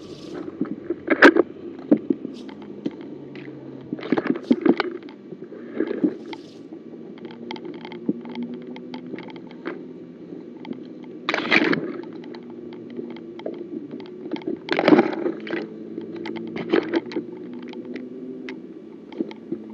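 A vehicle engine running steadily, with sudden knocks and rattles every few seconds, as of the vehicle jolting over rough ground.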